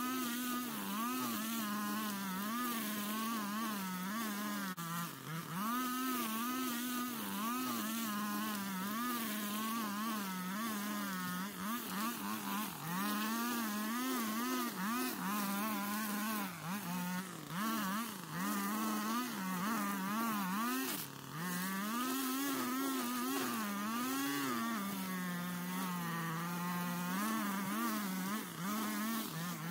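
Gas string trimmer engine running while cutting tall, thick grass, its pitch rising and falling continually as the throttle is worked and the line bogs in the growth.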